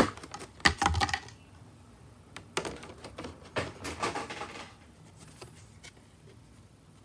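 Hands handling a clear plastic blister tray and trading cards: a scatter of small clicks, taps and rustles, busiest in the first second and again around three to four seconds in, then only a few light taps.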